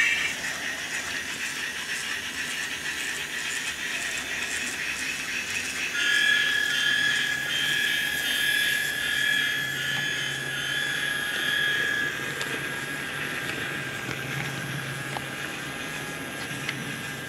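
Steady rolling train noise, with a high steady whine that comes in about six seconds in and fades after about twelve seconds.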